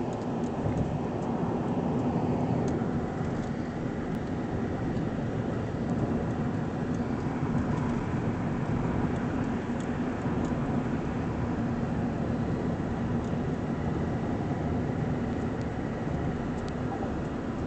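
Steady road noise inside a moving car at highway speed: tyre and engine rumble with a low hum.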